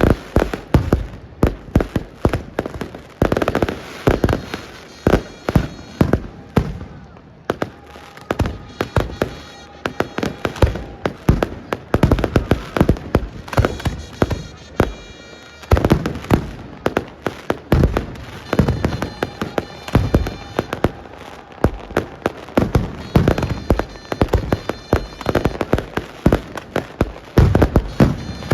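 A fireworks display: a dense, irregular run of sharp bangs and crackles going off one after another, with music playing underneath.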